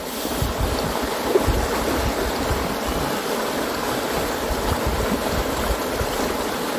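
River rapids rushing: a steady, dense wash of fast-flowing water.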